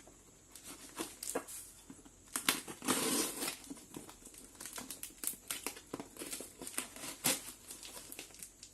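Shipping packaging being torn open and handled: irregular crinkling and ripping with sharp clicks, busiest about two and a half to three and a half seconds in.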